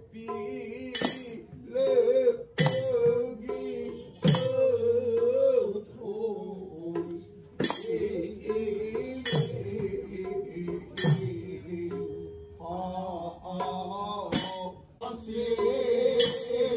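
Devotional singing with a metallic cymbal clash every second or two.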